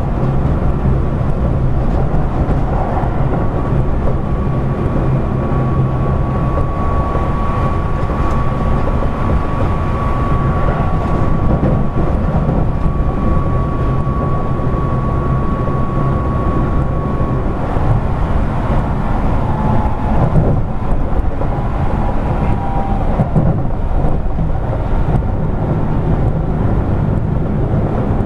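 Keio 8000 series electric train running at speed, heard from inside the car: a steady rumble of wheels on rails and the running gear. A steady high whine holds for several seconds in the middle, with shorter high tones a little later.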